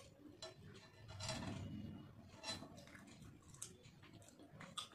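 Fingers mixing watery panta bhat (fermented rice) in a steel plate: faint wet squishing and light clicks of fingers against the metal, with a louder wet squelch about a second in.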